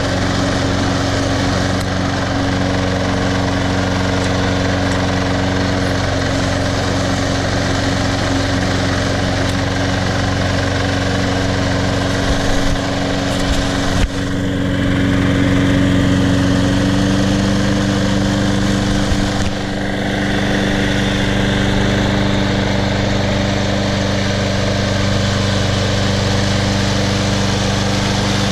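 Snapper 21-inch self-propelled walk-behind mower's Briggs & Stratton engine running steadily under throttle while cutting grass. Its pitch and level shift a little about halfway through.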